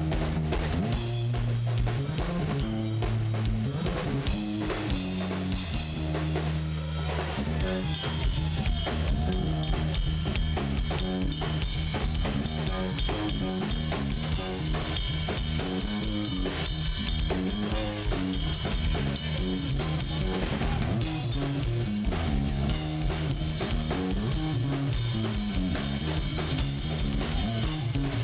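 Live rock drum and electric bass solo: a Yamaha drum kit played with a dense stream of kick, snare and cymbal hits over an electric bass guitar line that moves from note to note.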